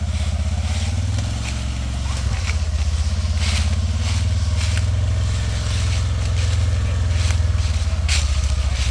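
Engine of a Polaris Ranger side-by-side running steadily as it drives slowly over a leaf-covered trail, with dry leaves crackling a handful of times.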